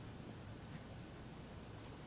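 Quiet, steady background hiss with a low hum and no distinct events: the ambient noise floor of a televised tennis match between points.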